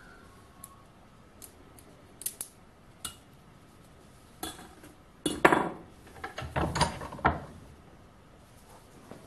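Small metal tools and parts being handled on a steel workbench and vise: scattered light clicks and clinks, with a cluster of louder knocks and clatter about five to seven seconds in.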